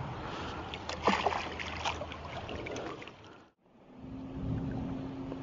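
A hooked bass splashing at the surface beside a small boat as it is drawn in on a fly line, with a few sharp knocks. After a brief break, a steady low hum from the boat's motor over lapping water.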